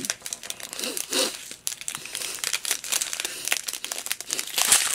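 Small plastic zip-top bags of diamond painting drills crinkling as they are handled and laid out, with many small irregular clicks and rustles.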